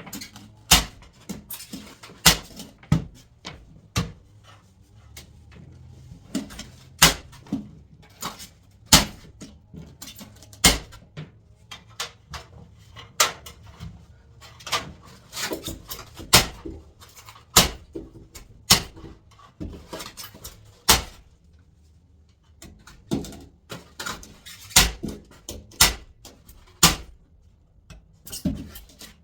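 Staple gun firing staples through an attic ventilation baffle into wooden rafters: a long run of sharp snaps, irregularly spaced about one every second or so, some in quick pairs.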